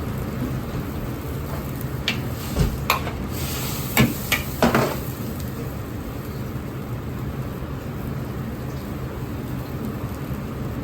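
Steady roar of a commercial Chinese kitchen's gas wok burners and exhaust. About two to five seconds in come half a dozen sharp metal clanks of utensils against a wok.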